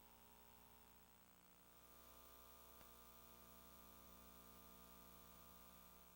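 Near silence: a faint, steady electrical hum with light hiss, and one faint click about three seconds in.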